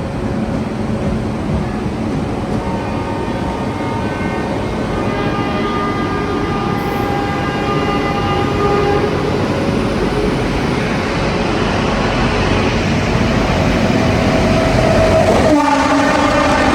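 A passenger train running along the platform, its rumble growing steadily louder, with high whining tones from the wheels and rails in the middle. A short horn sounds near the end.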